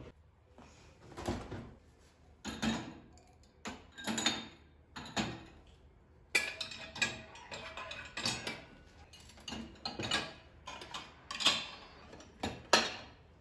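Kitchenware being handled: an irregular series of clinks and knocks from dishes and utensils, some ringing briefly, the loudest near the end.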